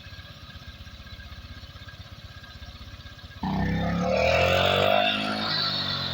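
Honda Vario scooter's single-cylinder engine idling with a quick, even pulse, then revved about three and a half seconds in, its pitch rising before easing back.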